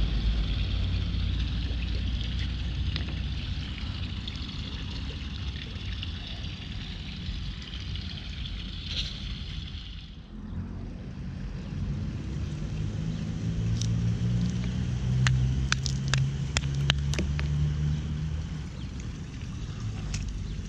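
Steady low rumble of wind on the microphone. In the second half comes a quick run of sharp clinks as chunks of ice are handled and knocked on brick paving, broken off a flashlight that had been frozen in a block of ice.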